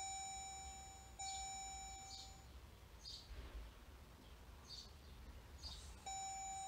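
Jeep Grand Cherokee SRT instrument-cluster warning chime: a steady tone with overtones, sounding twice back to back at the start and once more near the end. The chimes are set off by the PCM being overwritten during a tune flash, which makes the cluster report errors. Faint high chirps come in between.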